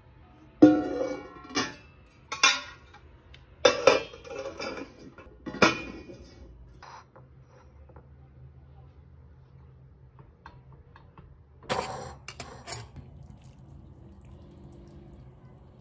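Enamelled steel pot and its lid being handled: five sharp metal clanks with a short ring in the first six seconds. A quick run of three or four clinks of kitchenware follows near the end.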